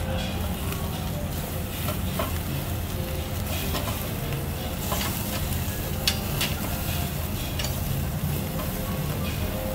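Marinated beef galbi sizzling on the wire grate of a charcoal tabletop grill, with a few sharp clicks of metal tongs moving the meat. A steady low rumble runs underneath.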